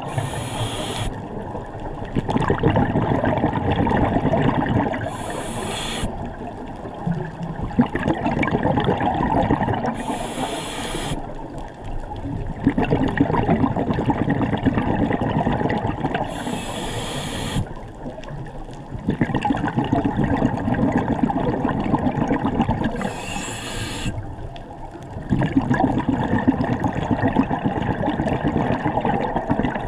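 Scuba diver breathing through a regulator: a short hiss with each inhale, then a few seconds of bubbling rumble as the exhaled air vents, repeating about every five or six seconds.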